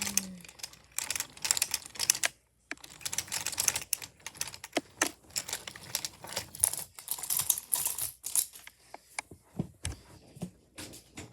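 Wooden toy trains and track clattering: rapid, irregular wooden clicks and rattles in flurries, with a short pause a couple of seconds in and sparser clicks near the end.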